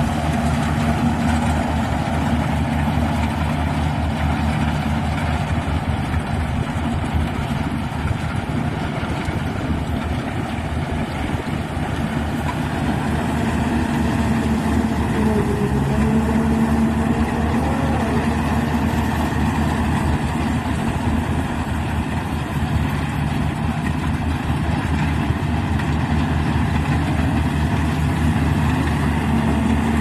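Rice combine harvester running steadily as it cuts standing rice close by: an even, loud engine drone with a low hum that holds throughout.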